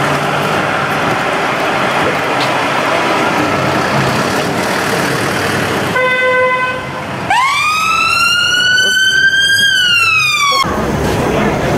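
Busy street traffic, then a short steady horn blast about six seconds in. It is followed by a siren wail that rises quickly, holds while edging higher for about two seconds, then falls and cuts off abruptly.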